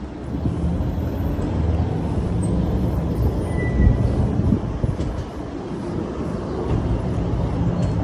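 Steady low outdoor rumble picked up by a phone's microphone.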